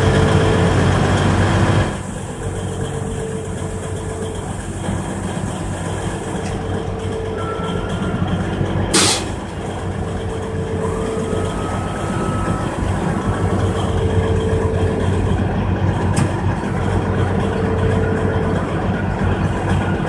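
Heavy diesel engine running steadily, louder for the first two seconds, with a tone sounding on and off every few seconds. A short, sharp air hiss about nine seconds in.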